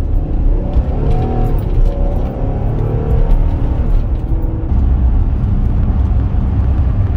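Car being driven, heard from inside the cabin: a steady low road and engine rumble, growing heavier about five seconds in once the car is on the highway.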